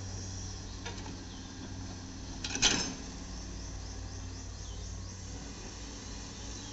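Komatsu PC210 hydraulic excavator's diesel engine running steadily while it dumps soil from its bucket, with a sharp clank about two and a half seconds in and a fainter one about a second in.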